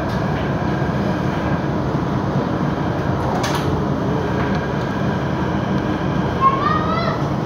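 Steady running rumble of a São Paulo Metro Line 5 train heard from inside the car, with another Line 5 train passing close alongside on the next track. There is a brief sharp hiss about three and a half seconds in, and a short rising whine near the end.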